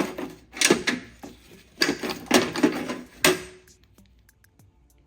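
Old metal hand tools clattering and clinking together as they are handled and rummaged in a toolbox, in several rattling bursts over the first three seconds or so, then only faint small knocks.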